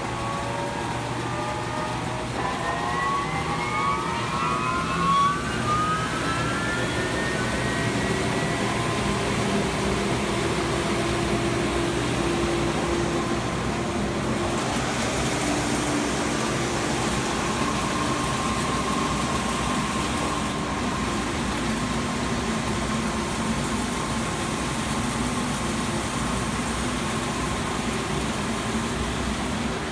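DMC Technosand 53-inch wide belt sander running with its sanding heads and vacuum pump on. A motor whine rises steadily in pitch over the first several seconds as the vacuum pump comes up to speed, then the machine settles into a steady hum.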